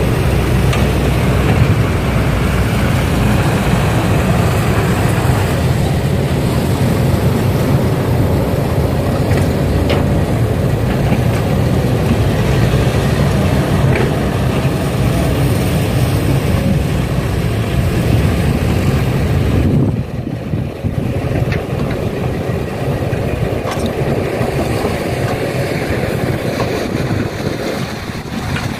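Heavy diesel machinery running steadily: the engines of an excavator and dump trucks loading soil. The sound drops suddenly about two-thirds of the way through and carries on quieter.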